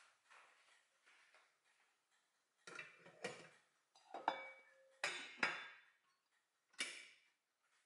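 Rice cooker's inner pot set down into the cooker body and the lid put on: a run of clunks and knocks, one followed by a short metallic ring, the last one near the end.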